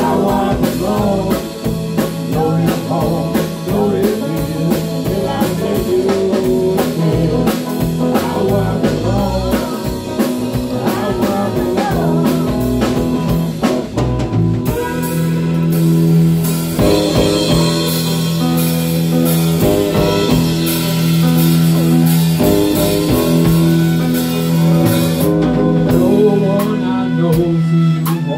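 Live band playing a bluesy rock song on electric and acoustic guitars, bass guitar and drum kit, with a steady drumbeat.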